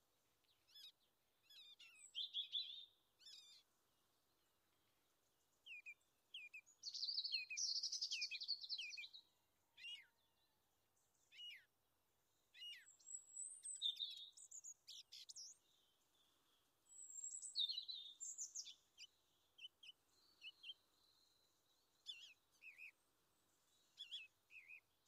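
Small birds chirping and singing in separate bursts: high-pitched calls, quick trills and short gliding notes, with quiet gaps between them.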